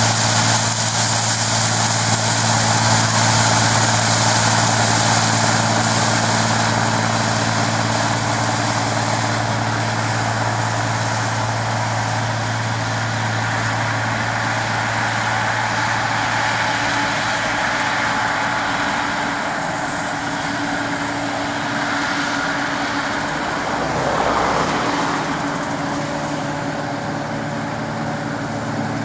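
Claas Dominator 106 combine harvester running steadily: a low engine drone with a hiss over it, both thinning out somewhat past the middle, with a brief swell near the end.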